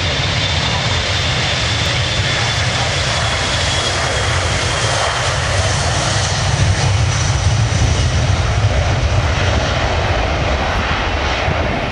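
Boeing E-3D Sentry's four CFM56 turbofan engines at take-off power during the take-off roll: a steady jet engine noise with a high whine above it, growing louder about halfway through as the aircraft passes and easing slightly near the end.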